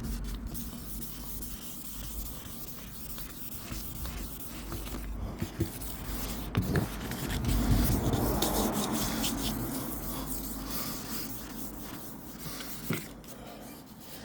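Wet sanding of a car's painted panel by hand: sandpaper rubbing back and forth over the paint. The scuffing grows louder about halfway through, with a few light knocks.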